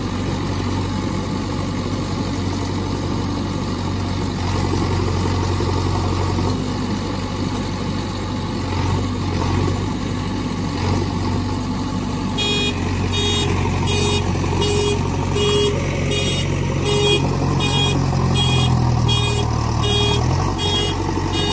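Low, steady vehicle engine running sound. Just past halfway a repeating electronic beep starts, a little more than once a second, like a reversing alarm.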